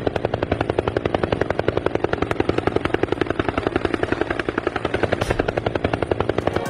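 Helicopter sound effect: rotor blades chopping steadily at about ten beats a second.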